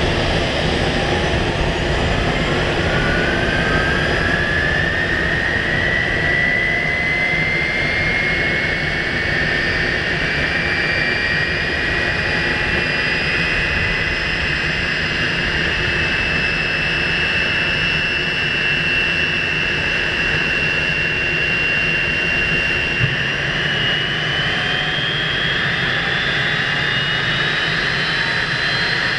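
McDonnell Douglas MD-82's Pratt & Whitney JT8D turbofan starting up: a whine rising steadily in pitch over the first fifteen seconds or so, levelling off, then climbing again over the last several seconds, above a steady rushing noise. A single brief click comes about three-quarters of the way through.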